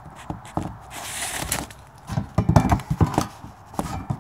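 Irregular clunks and knocks from a Suburban's front wheel and steering linkage as the raised wheel is rocked by hand, loudest in a cluster just past the middle, with a short scuffing noise about a second in. The knocking is the sign of a little play in the front end, which the owner takes for a worn idler arm.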